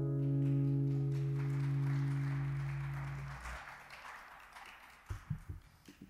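Acoustic guitar's final chord ringing out and fading away, ending about three and a half seconds in, followed by a few soft thumps near the end.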